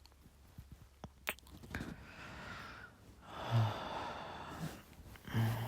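Close-up breathing into the microphone: a couple of soft mouth clicks, then two long, sighing breaths, with a brief low hum of the voice in the middle of the second breath and again near the end.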